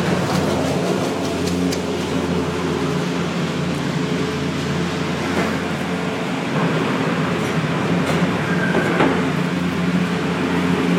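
Detachable chairlift terminal machinery running, its rows of rubber conveyor tires spinning. A steady hum with several constant tones and a few faint clicks.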